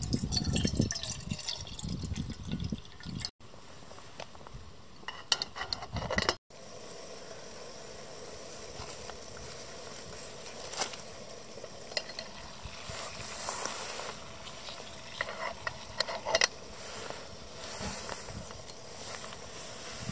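Water poured from a bottle into an aluminium Trangia kettle, splashing into the pot. After a cut, a steady hiss with scattered light ticks as the kettle heats on the camp stove.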